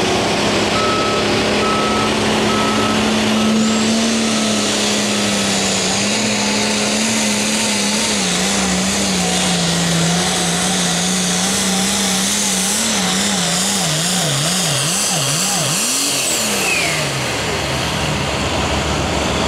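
466-cubic-inch diesel engine of a Limited Pro Stock pulling tractor running flat out under the weight of the sled, holding a steady high pitch. Near the end its pitch wavers rapidly up and down, then falls away as the run ends. A backup alarm beeps for the first few seconds.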